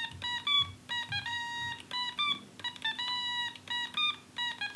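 Otamatone played as a quick run of short, high, whiny notes, about three a second. Each note steps to a new pitch, often with a slight slide as it ends, as a simple melody is picked out on the stem.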